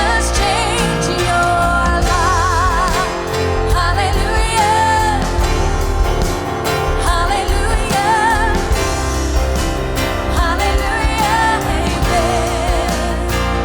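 Live worship band playing: drums, bass, guitar and keyboards under a singer's voice, held notes sung with vibrato.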